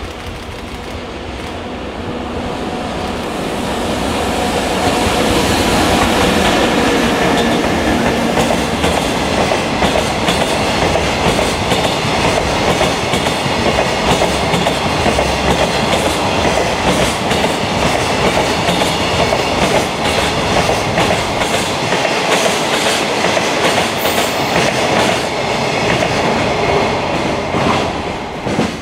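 JR Freight EF64 1000-series electric locomotive hauling a container freight train past at close range: the noise builds over the first few seconds as the locomotive approaches. A long string of container wagons then rolls by with a steady clickety-clack of wheels over rail joints and points, dropping away near the end as the last wagon passes.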